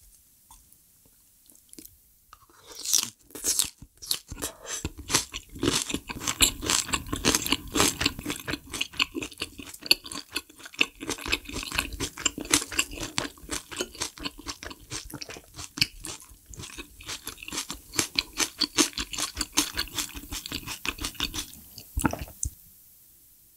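Close-miked chewing of food: rapid wet smacks and clicks, several a second, starting about two and a half seconds in. They end near the close with a single soft thump.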